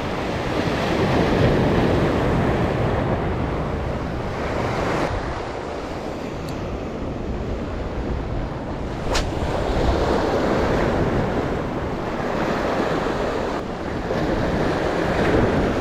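Rough-sea surf breaking and washing over the rocks of a breakwater, rising and falling in swells, with wind buffeting the microphone. A single sharp click about nine seconds in.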